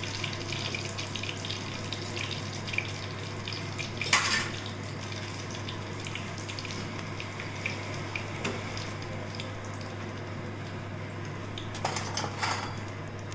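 Batter-coated green chillies (mirchi bajji) deep-frying in hot oil for their second fry: a steady sizzle with fine crackling over a low hum. There are brief clatters about four seconds in and again near the end.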